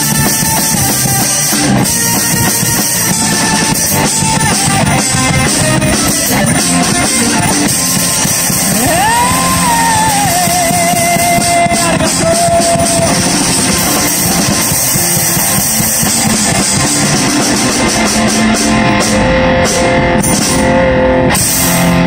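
Street band playing rock live: electric guitar and drum kit with singing. About nine seconds in, a note slides up and is held with a wavering vibrato.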